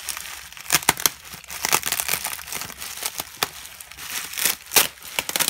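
Plastic bubble wrap crinkling and rustling as it is pulled off and unwrapped by hand, irregular, with a few sharper, louder crackles.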